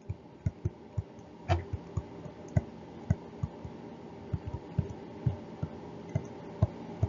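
A stylus tapping and clicking against a tablet screen while handwriting: irregular short clicks a couple of times a second, with one louder knock about a second and a half in, over a faint steady hum.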